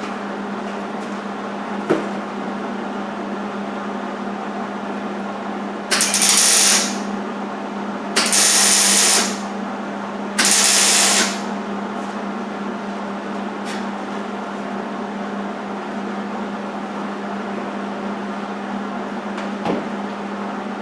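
Hobart 140 MIG welder arc crackling and sizzling in three short bursts of about a second each, laying welds on thin sheet steel. A steady low hum runs underneath.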